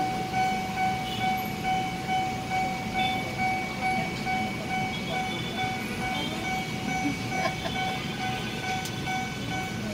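Railway level-crossing warning bell ringing in a fast, even repeat of the same tone, heard from inside a stopped car with a low rumble underneath.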